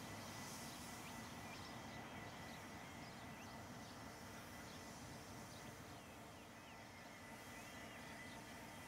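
Faint, scattered bird chirps over a steady low background hum and hiss, with a faint steady high-pitched tone running underneath.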